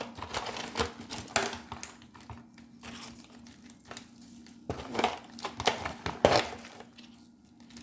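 Jerk seasoning shaken from a spice container over shrimp on a baking tray: a run of irregular short scratchy shakes and rustles, heaviest about five to six seconds in, over a faint steady hum.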